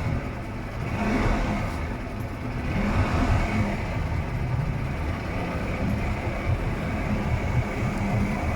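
200-horsepower two-stroke outboard motor running, its revs swelling briefly about a second in and again around three seconds in.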